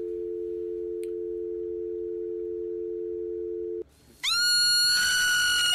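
A steady two-note electronic tone, like a telephone dial tone, plays with a TV colour-bar test card and cuts off after about four seconds. Half a second later a marmot lets out a long, loud, high-pitched scream.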